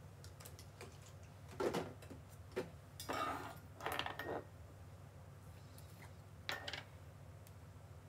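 Scattered light clicks and taps, with a few brief rustling handling noises, over a low steady hum.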